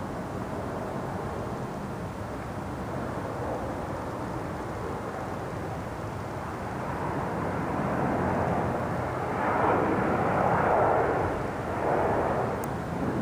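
Jet aircraft passing overhead, a steady noise that grows louder from about halfway through and peaks near the end.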